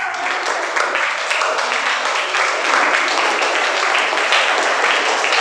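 A roomful of schoolchildren applauding: steady, dense clapping.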